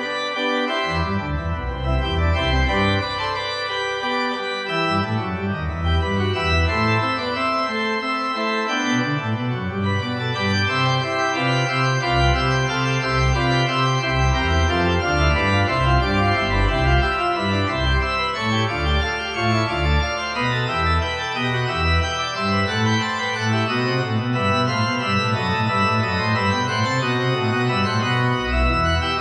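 Organ music: sustained chords over low bass notes that change every second or so.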